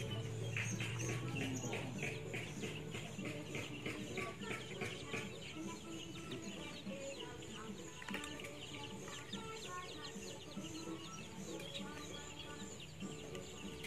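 Chickens clucking and chirping in many short, rapid calls, busiest in the first half.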